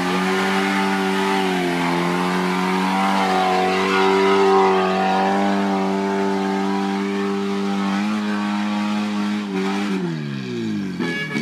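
Off-road 4x4's engine held at high, steady revs under load on the uphill climb, wavering slightly, then revs falling away sharply near the end.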